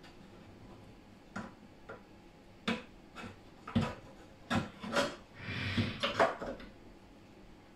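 Handling noise from a CR30 belt printer's belt and aluminium frame assembly being shifted on a benchtop while a new print belt is fitted: several short knocks and, later on, a longer rub.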